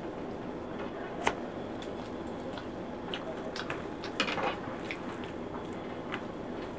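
Quiet eating by hand: fingers mixing rice and saag on plates with soft squishes and scattered light taps, the sharpest about a second in, along with chewing.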